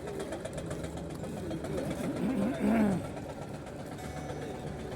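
Steady hum of a vehicle engine running, with a short voice calling out about halfway through.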